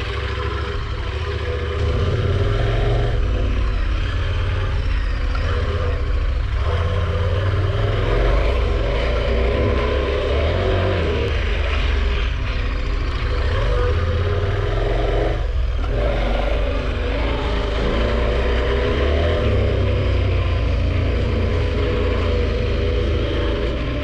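KTM 1190 Adventure R's V-twin engine running steadily under way, with wind and tyre noise over it. The engine sound dips briefly once, a little past halfway.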